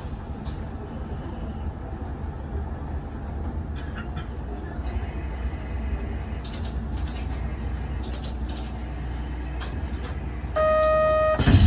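KiHa 2500 diesel railcar rolling slowly at low speed, heard from the driver's cab: a steady low rumble with a few clicks and rattles. Near the end a steady buzzer-like tone sounds for under a second, and a loud hiss of air starts just before the end.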